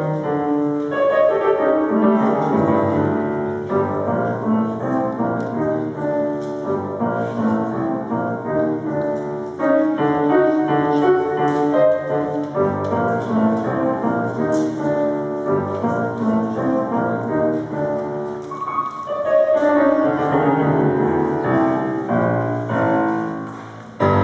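Solo grand piano playing a piece with a steady flow of notes. Near the end the last notes die away as the piece finishes.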